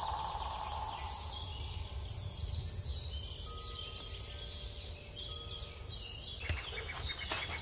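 Small birds chirping again and again, short high calls over a steady background hiss. About six and a half seconds in, a quick run of clicks and knocks.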